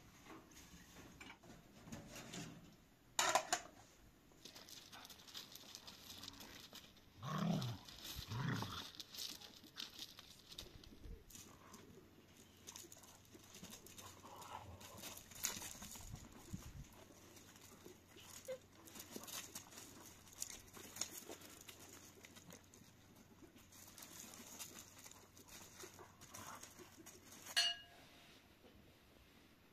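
Two dogs play-fighting, with short low growls. A sharp knock a few seconds in and a single ringing clink near the end.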